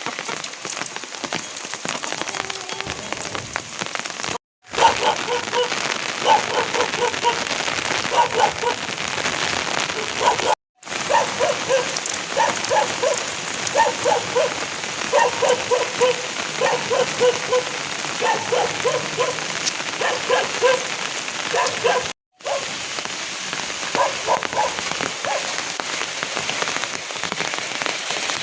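Steady rain falling, with many short pitched taps and drips standing out over the hiss through most of the middle stretch. The sound drops out completely three times for a moment.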